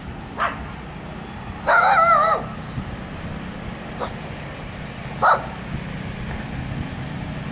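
A dog barking a few short times and giving one longer, wavering whine about two seconds in, the loudest sound here. Under it runs the steady hum of generators.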